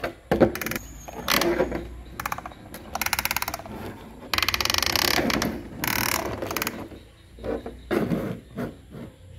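Hard plastic toy truck handled and pushed along a plastic tabletop: knocks of plastic parts, and runs of rapid clicking rattle from the toy's wheels and body, the longest about two seconds in the middle.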